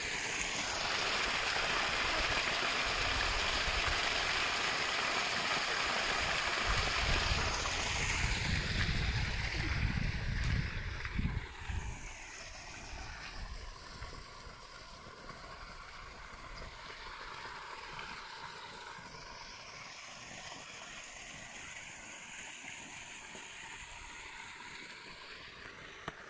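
Steady rushing of running water, like a small stream, loud for about the first ten seconds and then quieter, with a spell of low rumbling on the microphone shortly before it drops.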